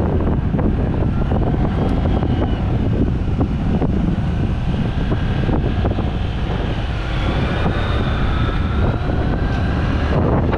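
Steady wind rumble and buffeting on a helmet-mounted GoPro Hero 8's built-in microphone while riding a motorcycle, with the engine and road noise underneath. A faint higher whine that wavers in pitch comes and goes, first near the start and again for a few seconds later on.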